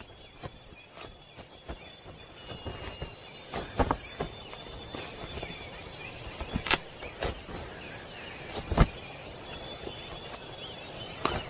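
Steady pulsing trill of insects, with a few sharp knocks scattered through, the loudest about nine seconds in.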